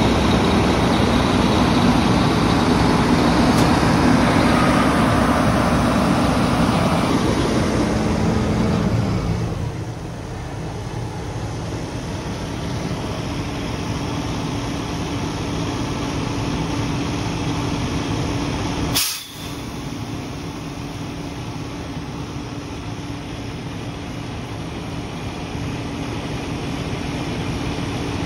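Fire engine's diesel engine and PTO-driven fire pump running loud at pumping pressure, then winding down about nine seconds in to a lower, steady idle. A single sharp sound a little after halfway.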